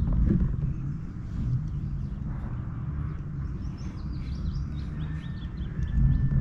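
Wind rumbling on the microphone, with a small bird chirping a quick series of short high notes in the middle.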